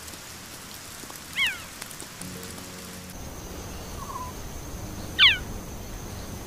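Cheetah chirping: two short, high, bird-like calls that fall in pitch, one about a second and a half in and a louder one about four seconds later. This is the call a cheetah uses to find another cheetah, here a male searching for a missing female. Faint rain patter runs underneath.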